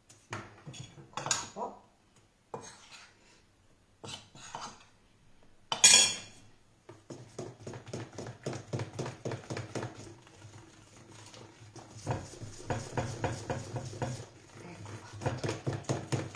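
Wire whisk beating thin crêpe batter in a plastic bowl. The strokes are irregular at first, with one sharp clack about six seconds in. Then comes steady, fast whisking at about five strokes a second.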